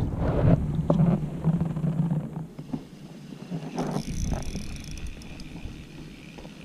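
Water splashing and sloshing against the side of a kayak as a hand works in the lake, with a few knocks on the hull. About halfway through it quietens to lapping water, with a faint steady high-pitched whine.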